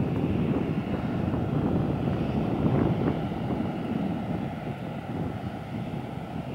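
Boeing 737-700's CFM56-7B jet engines running as the airliner rolls along the runway: a steady low rumble.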